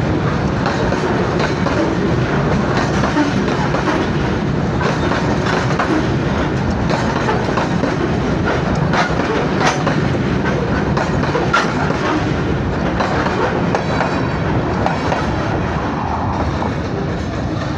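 Freight train's coal wagons rolling past at close range: a steady rumble and rattle of steel wheels on the rails, with the clickety-clack of wheels over rail joints and sharp metallic clicks now and then. The noise eases a little near the end as the last wagons go by.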